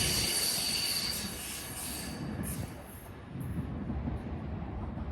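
BNSF train rolling past on the main line: rumble of wheels on rail with a high wheel squeal that fades out about a second in. The sound then dies away as the train moves off.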